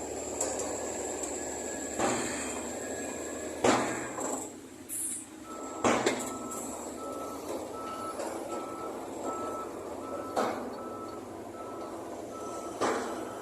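Construction machinery running steadily, with several heavy clunks of rock being loaded or dropped. About five seconds in, a vehicle's reversing alarm starts beeping steadily, roughly one and a half beeps a second.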